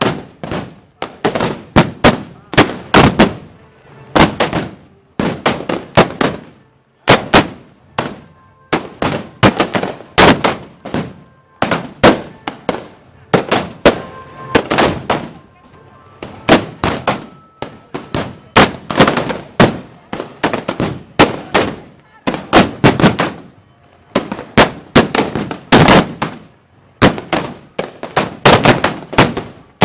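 Festival arquebuses (arcabuces) firing black-powder blank charges, shot after shot in an uneven run of about two or three bangs a second, each with a short echoing tail.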